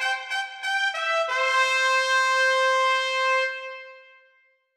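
Brass fanfare: a few short notes, then a long held note that fades away near the end.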